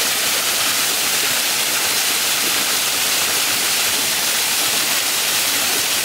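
Small waterfall spilling down stepped rock ledges into a shallow pool: a steady, bright rush of falling water.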